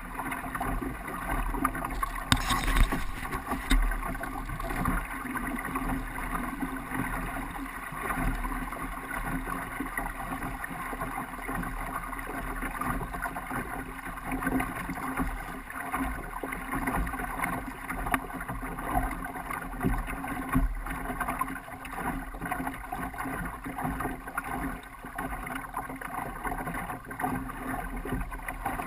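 Water rushing and splashing along the hull of a sailing canoe under way, with wind buffeting the microphone in uneven low rumbles.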